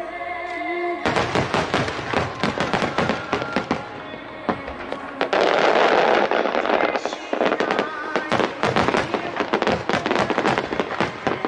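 Fireworks display: rapid bangs and crackling of many shells bursting, beginning about a second in. About five seconds in comes a spell of dense continuous crackle lasting under two seconds. Background music plays underneath.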